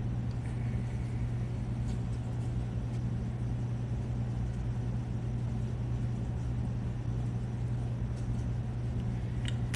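Steady low hum over an even background rumble, with a couple of faint clicks.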